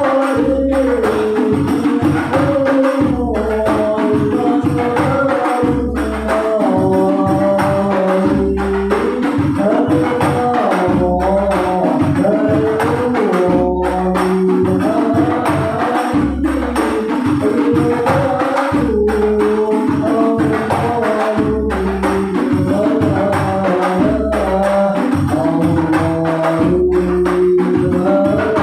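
Sholawat music played on hand percussion: jingling frame drums and deep bass drum strokes keep a steady rhythm under a stepping melody line, with no singing.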